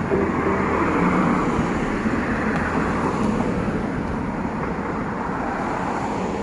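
Road traffic: a passing vehicle's tyre and engine noise swells about a second in and slowly fades, over a steady traffic hum.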